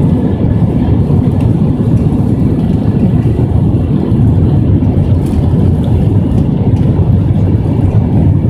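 Steady low roar inside the cabin of an Airbus A321 during takeoff or climb, the engines and rushing airflow blending into one even noise with no change.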